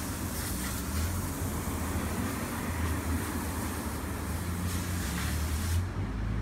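STIHL 020T top-handle two-stroke chainsaw idling steadily.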